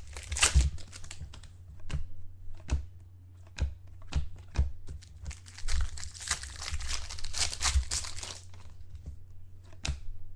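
Trading cards being handled and flipped through by hand: a run of light clicks and taps, with two stretches of sliding and rustling, over a steady low hum.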